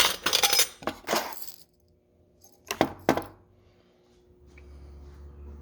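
Loose nails, screws and small metal hardware clattering and clinking in a metal coffee can: a rapid run of clinks for about a second and a half, then a second short burst about a second later.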